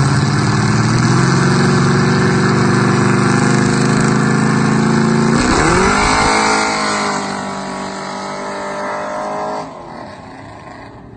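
Two drag-racing vehicles, a supercharged Ford SVT Lightning pickup and a G-body car, rev their engines on the line with the pitch slowly rising. About five seconds in, the engine note swings sharply up as they launch together. The sound then settles and fades as they pull away down the road.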